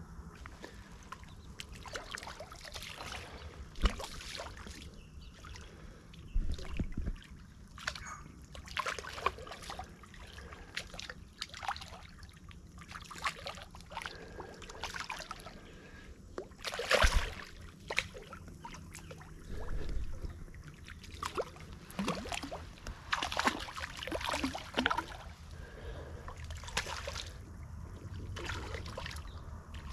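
A landed tarpon splashing and thrashing in shallow water at the bank, with irregular splashes and sloshing; the biggest splash comes about 17 seconds in.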